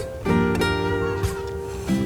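Background music on acoustic guitar, strummed chords changing about a second in and again near the end.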